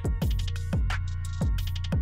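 Background electronic music with a steady beat: deep kick drums that drop in pitch, sharp high hits, and a held bass note underneath.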